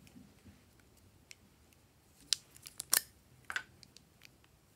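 A quick run of sharp plastic clicks and taps from small plastic lip balm tubes being picked up and handled, loudest about three seconds in.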